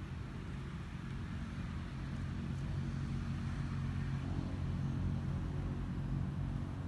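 A steady low engine hum with a faint noisy wash above it, growing slightly louder about two seconds in.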